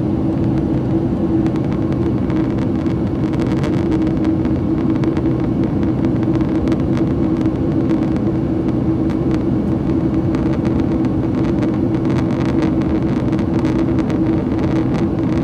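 Steady cabin drone of a Boeing 767-300ER in flight, heard from a window seat: engine hum with a constant low tone over the rush of air, unchanging throughout.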